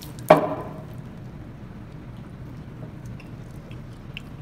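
A single sharp knock with a short ringing tail, about a third of a second in. A low steady room hum follows, with a few faint small clicks.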